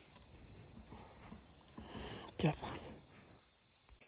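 Steady high-pitched drone of forest insects, broken once about two and a half seconds in by a short sharp sound and a brief spoken word.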